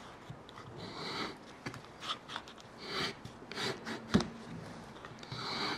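Wooden Japanese splitting gauge (wari-kebiki) drawn along a thin wooden board, its blade scratching the wood in short strokes, with handling rubs and one sharp wooden knock about four seconds in.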